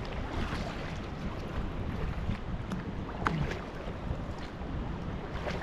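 Wind noise on the microphone over the rush of river water, with occasional light splashes and drips from the double-bladed kayak paddle strokes.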